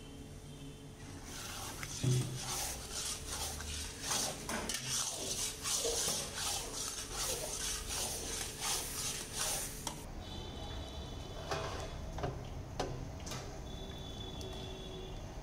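Metal spatula stirring and scraping a thick, sticky sweet mixture around a metal kadai, in quick irregular strokes against the pan. About ten seconds in the scraping stops, giving way to quieter handling of the mixture.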